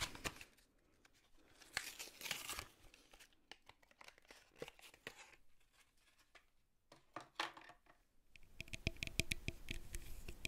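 Toothbrush packaging being torn open and crinkled close to the microphone, in soft bursts of rustling with quiet gaps. Near the end comes a quick run of small clicks and taps as the toothbrush is handled.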